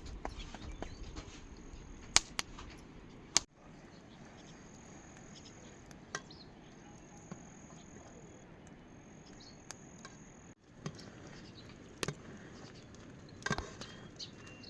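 An insect's thin, high, steady buzz in three stretches through the middle, over a faint outdoor background, with a few sharp knocks here and there.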